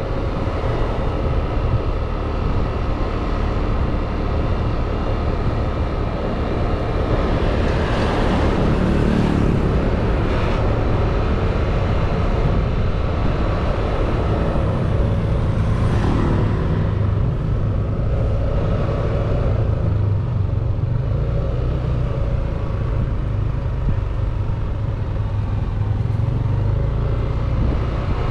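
Motor scooter riding through street traffic: its small engine running steadily under road and wind noise, with the traffic around it swelling louder about eight seconds in and again about sixteen seconds in.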